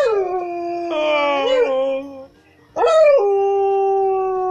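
Dog howling: a falling howl, then a wavering one, then after a short pause a long howl that rises and settles into a steady held note.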